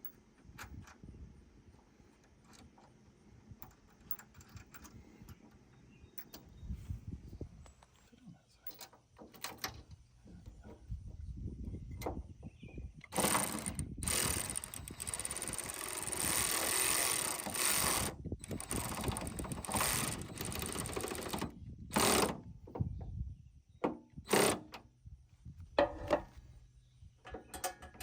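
Hand work on the bumper's tire-carrier hardware: scattered clicks and clinks, then a long stretch of dense mechanical rattling with short breaks, and a few sharp knocks near the end.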